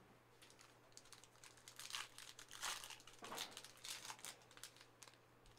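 Plastic wrapper of a Panini Prizm trading-card pack being torn open and crinkled: a run of short crackly rustles, loudest in the middle.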